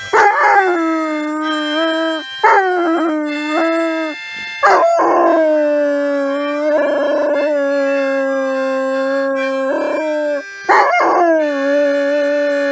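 Yellow Labrador retriever howling in long drawn-out notes, each starting with a rise in pitch, in several runs with short breaks between them.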